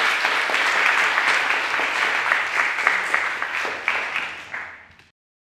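Audience applauding, many hands clapping at once, dying away near the end and then cutting off abruptly.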